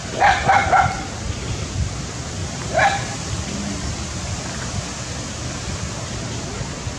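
Macaque calls: three short, quick squeaky calls in the first second and one more near three seconds in, over a steady background hiss.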